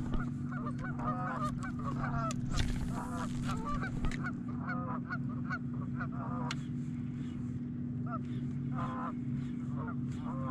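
Geese honking over and over, a flock calling in quick bursts, over a steady low hum. About two and a half seconds in there is a brief hiss lasting about a second.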